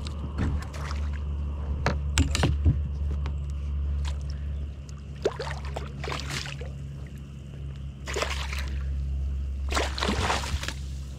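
Water sloshing and splashing around a kayak in several short bursts, over a steady low hum.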